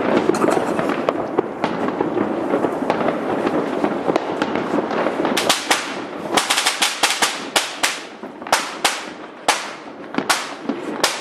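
Fireworks display going off: a dense, continuous crackling through the first half, then a quick run of separate sharp bangs, about three a second, each trailing off in an echo.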